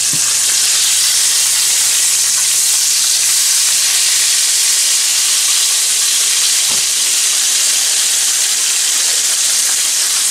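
Flour-dredged grey snapper steak deep-frying in hot oil in a skillet: a steady, even sizzle.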